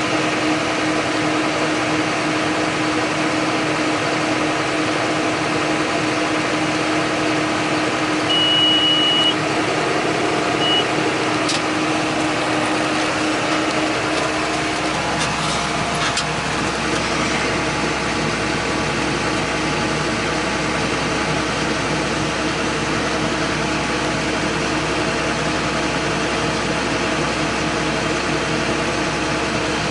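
John Deere 8100 tractor's six-cylinder diesel engine running steadily, its note changing about halfway through. A short high beep sounds twice about a third of the way in.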